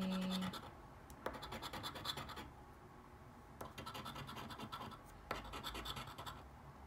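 Scratch-off lottery ticket being scraped with a round token: quick runs of short scraping strokes across the coating, broken by brief pauses.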